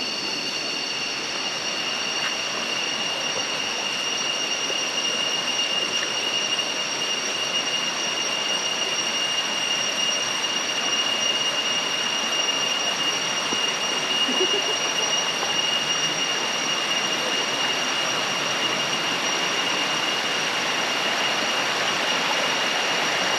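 Waterfall water rushing steadily, with a steady high-pitched insect drone over it.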